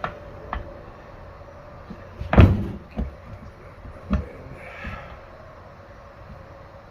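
Clicks and knocks of parts being handled and fitted together while a Mercury MerControl remote-control box is reassembled. The loudest knock comes about two and a half seconds in and a second sharp one about four seconds in, with a faint steady hum underneath.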